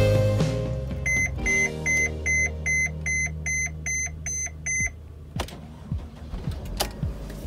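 Mercedes Sprinter van's dashboard warning chime beeping about ten times, evenly at roughly two and a half beeps a second, as the key is worked in the ignition while the dead battery is being boosted. A few sharp clicks follow near the end.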